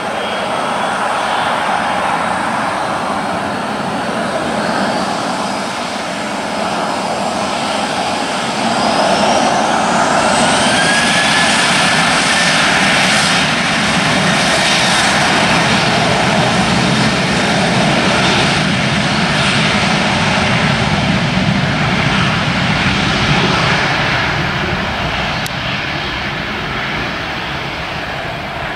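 Boeing 737-800's twin CFM56-7B jet engines spooling up to takeoff thrust. A whine rises about eight seconds in, and the engines then run steadily at full power through the takeoff roll.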